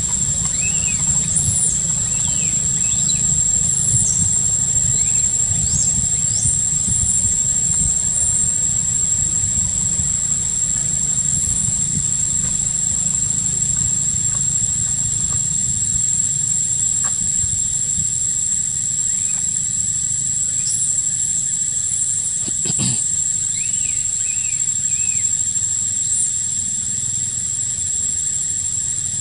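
Outdoor forest ambience: a steady high-pitched insect drone, with scattered short bird chirps over a low rumble, and a single short snap a little over two-thirds through.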